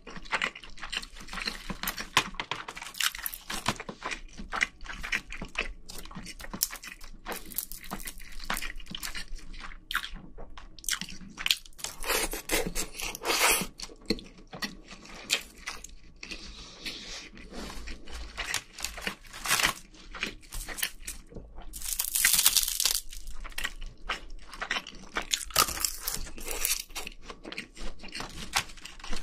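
A person chewing and crunching food, picked up close by microphones: dense wet clicks and crackles of mouth sounds, with two longer noisy stretches, one about halfway and one about three-quarters in.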